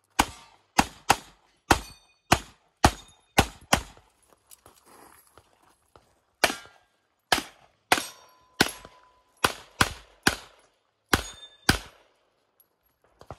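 Rapid handgun fire in an IPSC practical shooting stage: about twenty sharp shots, many in quick pairs, with a pause of about two seconds near the middle.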